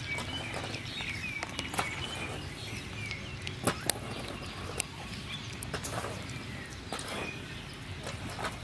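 Puppy eating soft food from a plastic bowl, with a few sharp clicks, two of them close together about four seconds in. Birds chirp in the background, mostly in the first few seconds.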